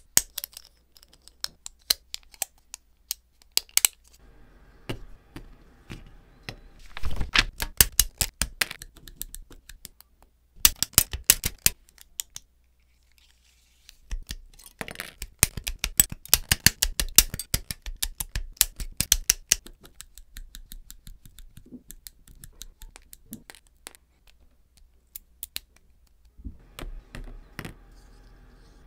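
Plastic model-kit parts clicking and snapping as they are pressed together, with sprue nippers snipping parts off a chrome-plated runner. Many sharp clicks come in quick clusters, with sparser ones between.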